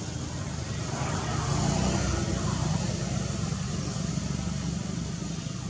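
Motor vehicle engine running nearby: a steady low rumble that grows louder about a second in and slowly eases off, like a vehicle passing.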